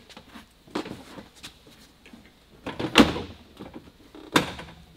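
Porsche 718 Cayman GT4 rear bumper cover knocking and clicking against the car body as it is pushed into place: a few sharp clunks, the loudest about three seconds in and another about a second and a half later.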